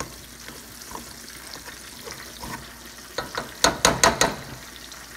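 Metal potato masher working margarine into boiled potatoes in a pot: soft squishing and scraping, then from about three seconds in a quick run of about six sharp clacks as the masher strikes the pot.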